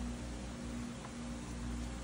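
Steady low background hum with a faint constant tone, the room tone of a car interior; no distinct wiping strokes stand out.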